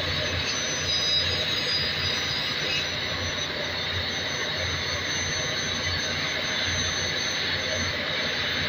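Ship's engine-room machinery running: a constant loud drone with a pulsing low hum and a thin steady high tone, unchanged throughout.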